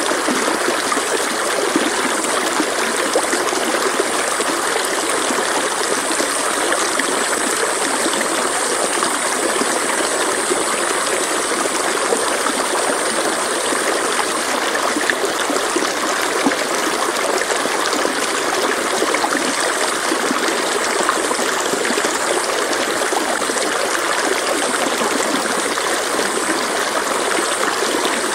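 Stream water flowing steadily, a continuous even rush of water with no breaks.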